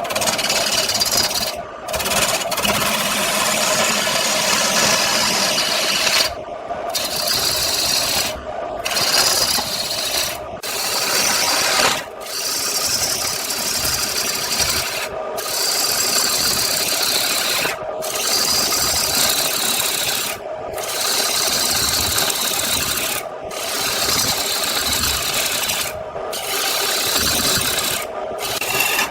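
Wood spinning on a lathe with a tool scraping against it: a steady rasping hiss, broken by brief drop-outs every two to three seconds.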